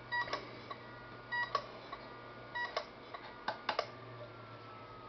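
LaCie 1 TB external hard drive clicking over and over, about once every 1.2 seconds. Each time there is a short buzz, then a sharp click, and the clicks stop about four seconds in, with a low steady hum underneath. This is the clicking of a failing drive, which the owner puts down to a bad power supply.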